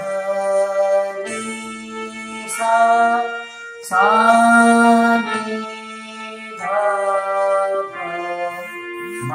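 Man slowly singing the Indian sargam scale syllables (sa re ga ma pa dha ni sa), one held note after another, each lasting about a second, with a steady instrumental accompaniment underneath.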